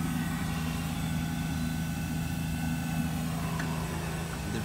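Steady, even low hum of a running motor.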